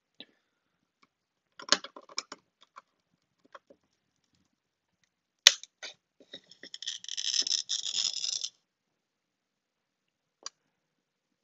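Tungsten-wheel glass cutter scoring a mirror tile in one pass along a steel ruler: a gritty, high-pitched scratching hiss lasting about two seconds, a little past the middle. Scattered clicks and one sharp tick come before it, and a single click near the end.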